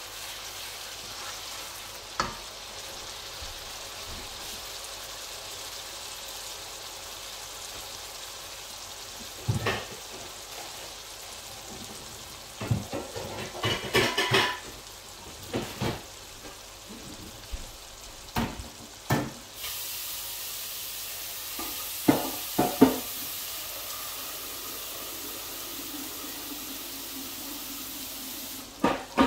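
Spiced curry masala sizzling and bubbling in a wok, with a spoon stirring and knocking against the pan now and then, most in a cluster around the middle. The sizzle gets louder about two-thirds of the way through.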